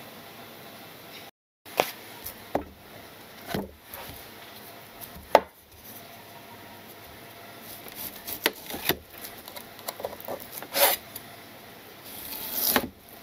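A chef's knife slicing through a block of bacon on a wooden cutting board, with irregular sharp knocks as the blade reaches the board, and a longer stroke just before the end.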